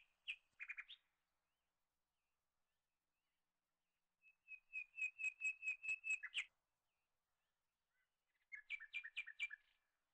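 A bird chirping: a few short high calls at the start, a run of about eight quick repeated notes in the middle, and a shorter run near the end, with silence between.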